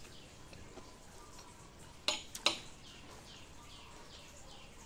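A fork clinks twice against a plate about two seconds in, over a bird chirping steadily in short falling notes, about three a second.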